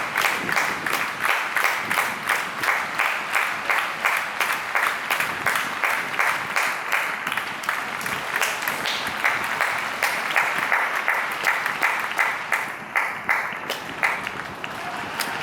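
Football stadium crowd clapping together in a steady rhythm, about three to four claps a second. Near the end the clapping thins and grows quieter.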